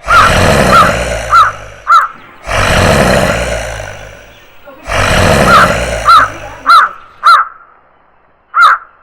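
Horror sound-effect mix: crows cawing again and again over three long, deep rumbling whooshes that each swell up and fade away. After the third whoosh dies out, about three-quarters of the way through, only the crow caws remain.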